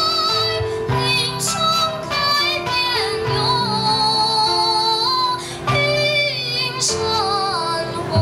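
A song: a woman's voice singing a held, wavering melody over instrumental backing with a bass line.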